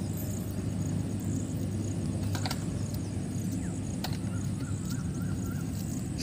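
Outdoor rural ambience: a steady low rumble, with a couple of sharp clicks and a few faint short bird calls about four to five seconds in.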